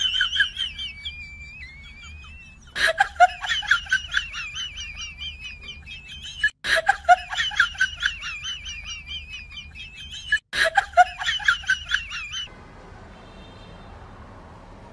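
Rapid, high-pitched chirping warble like bird song, heard in three near-identical stretches, each starting with a sharp click. It cuts off abruptly near the end.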